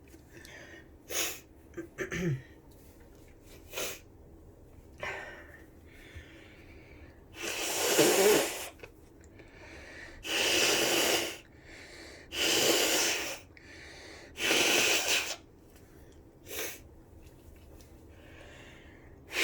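A person's tickly nose: short sharp sniffs and catches of breath, then a sneeze about eight seconds in. After it come three nose blows, each a steady rush of air about a second long, and one last short sniff.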